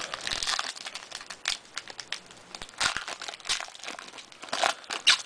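Trading card pack wrapper crinkling and tearing in the hands, with irregular crackles as a pack of Upper Deck basketball cards is handled and opened.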